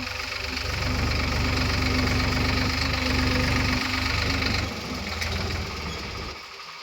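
Heavy diesel engine of an earth-moving machine running steadily with a deep rumble. It fades somewhat about two-thirds of the way through and drops away near the end.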